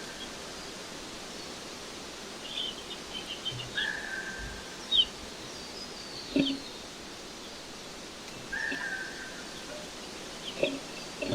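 Small birds calling and chirping: a short held note repeats every few seconds among quick falling chirps, with a few dull knocks, over a steady background hiss.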